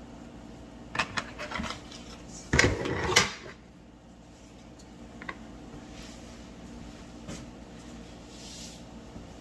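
Kitchen cookware and utensils being handled: a few light clinks about a second in, then a louder clatter and scrape around the third second, after which only a low steady background remains.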